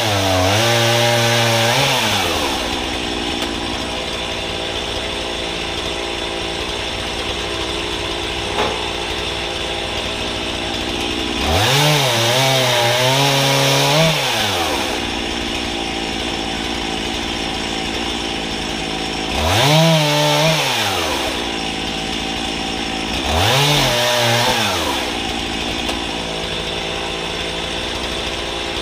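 Gas chainsaw idling steadily, revved up to full speed four times to cut through firewood logs, the pitch wavering under load during each cut of one to three seconds before dropping back to idle.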